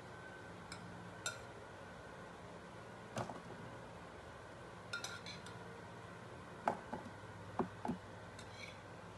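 Pieces of fried potato being dropped into an aluminium foil pan with a metal steaming rack in it: scattered light clinks and taps of foil and metal, a few at a time, over a faint steady hum.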